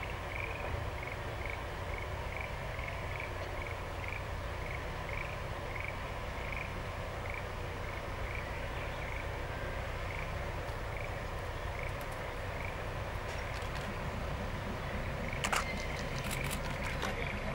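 Quiet countryside ambience: a short, high chirping call repeated about twice a second over a low steady rumble, with a few sharp clicks near the end.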